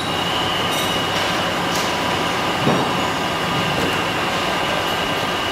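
Electric spindle motor running with a steady high-pitched whine over a constant rumbling mechanical noise.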